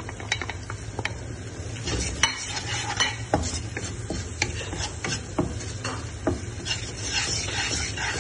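Wooden spatula stirring and scraping a tomato-and-onion masala around a nonstick frying pan, with irregular taps against the pan over a light sizzle of the oil.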